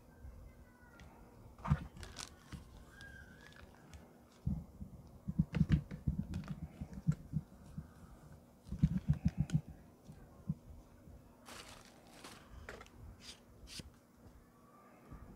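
Handling noise from fitting a condenser microphone into its plastic shock mount: scattered sharp plastic clicks, and two runs of rapid low knocks and rattles, the first about five seconds in and the second about nine seconds in.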